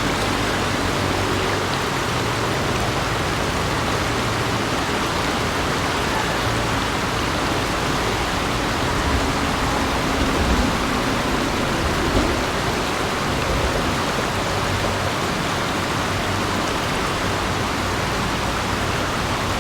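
River water rushing in a steady, dense hiss, with small swells of louder splashing now and then.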